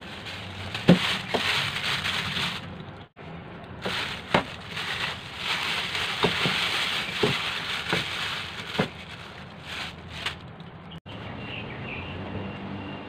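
Plastic bag crinkling and rustling as it is handled over a stainless-steel sink, with several sharp knocks of a steel bowl against the sink. Near the end the sound gives way to quieter steady background.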